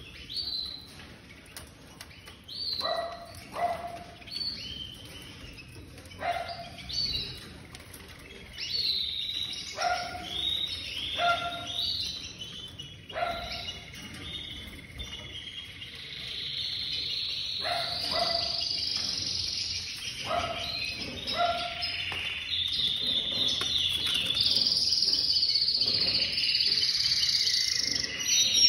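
Canaries calling with short, separate chirps, then launching about halfway into a continuous warbling song that grows louder toward the end.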